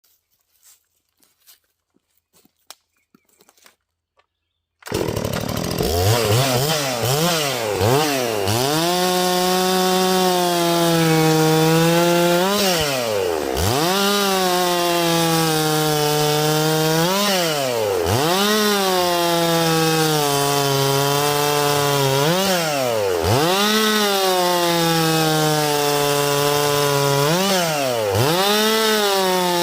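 Holzfforma G366 two-stroke chainsaw starting up about five seconds in after a few faint clicks, then running at high revs. Every few seconds the revs dip sharply and climb straight back up.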